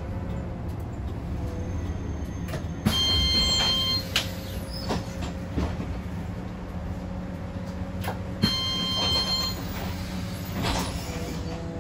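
City bus running, heard from inside the cabin: a steady low drivetrain hum with a faint whine. Twice, about five and a half seconds apart, a click is followed by an electronic beep tone lasting about a second.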